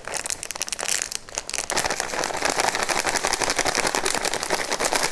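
Crinkling of a plastic herb-mix bag being opened and shaken out over a bowl: a run of crackles that turns dense and continuous after the first couple of seconds.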